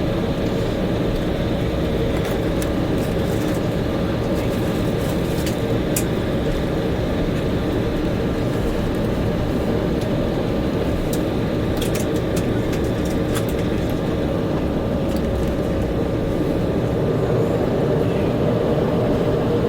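Steady cabin drone of an Embraer E190 taxiing after landing: engines at idle and cabin air over a low rumble, with a few faint clicks.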